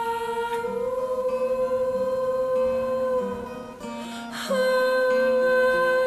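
Background music: long held, voice-like notes over a lower line that steps between notes, moving to a new held note about four and a half seconds in.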